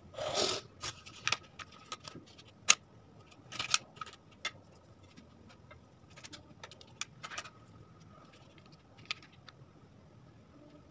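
Light hand work with kitchen utensils: a short scrape at the start, then scattered small clicks and taps with brief paper rustles as cookie-dough rounds are pressed flat with a silicone spatula on parchment paper in a fry pan.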